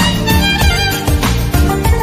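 Background music: a bowed string melody over a steady, quick beat.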